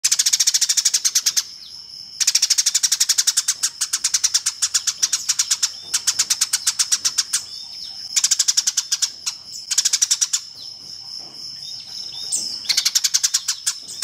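Eurasian tree sparrow chattering: fast runs of sharp, high chirps, about ten a second, in bursts of one to three seconds with short pauses between.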